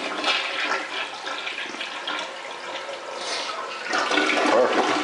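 Toilet flushing: water rushing from the cleared rim holes and swirling down the bowl, getting louder about four seconds in.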